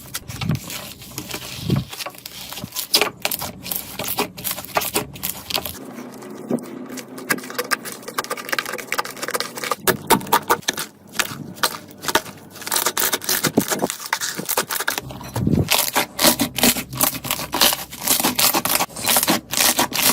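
Slime being squeezed and pressed by hand, giving a dense run of irregular crackles, pops and clicks, with a few soft low squelches.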